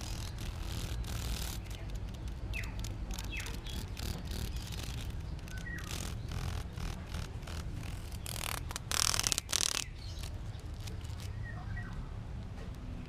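Cicada buzzing in short, harsh bursts, the longest and loudest about nine seconds in, with a bird chirping faintly a few times.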